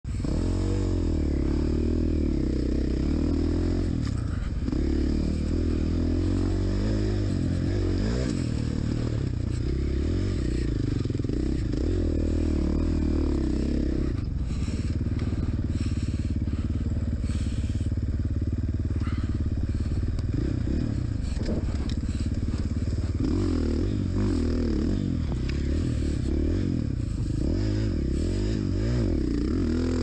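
KTM dirt bike engine running under way, its revs rising and falling constantly as the bike is ridden over a rough, rutted trail.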